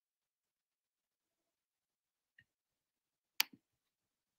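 Quiet, broken by one sharp, short click about three and a half seconds in.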